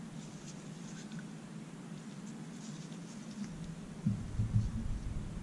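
Gloved hands handling a metal wheel-nut socket: faint rustling and light clicks, then about four seconds in a few low knocks as the socket is set down on paper over a worktop. A steady low hum runs underneath.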